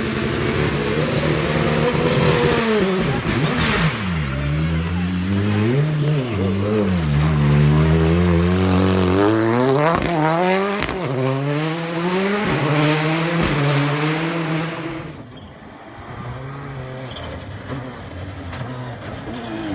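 Rally car engine at full effort, its note climbing and dropping again and again through gear changes and lifts as it drives the stage. About fifteen seconds in it falls away sharply, leaving a quieter engine note in the distance.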